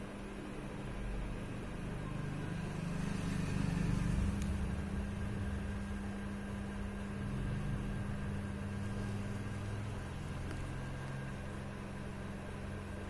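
Steady mechanical hum over a constant hiss, with a low rumble that swells about three to four seconds in and again around eight to ten seconds.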